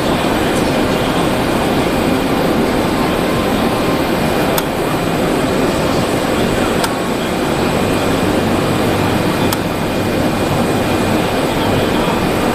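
Automatic cutting and creasing machine running with a steady mechanical whir, with a few sharp clicks a couple of seconds apart.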